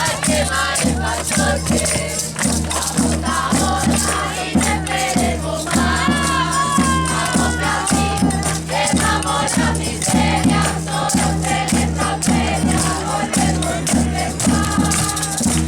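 Music with a steady, pulsing bass beat, singing voices and shaker-like percussion.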